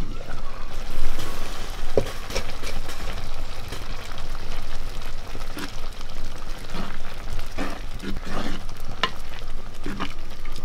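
Moong dal curry simmering in a clay pot over a wood fire, stirred with a bamboo spatula that scrapes and knocks against the pot's sides, over a steady bubbling hiss. A sharp knock about two seconds in.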